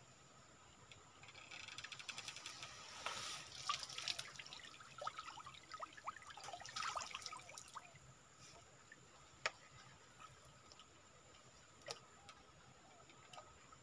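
Water splashing and dripping off a square lift net as it is hauled up out of a stream on a bamboo pole, with small splashes as a hand dip net scoops the catch. The water sounds die away about eight seconds in, followed by a couple of sharp single clicks.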